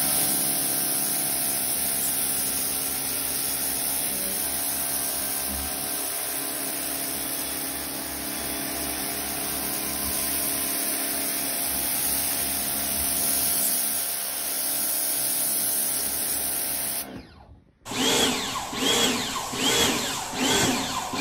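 Bosch UniversalAquatak 125 electric pressure washer running steadily, a motor-and-pump whine over the hiss of its rotary jet hitting wet paving. A cut about 17 s in breaks it off. Another spray follows with a rhythmic pulsing, about twice a second.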